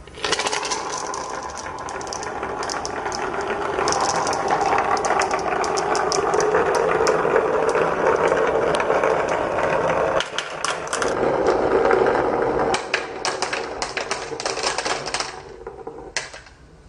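Many glass marbles rolling down wavy grooved wooden slopes: a dense rattle of rolling with many sharp clicks as the marbles knock against each other and the groove walls. It starts suddenly, dips briefly about ten seconds in, picks up again, and dies away near the end with a last click.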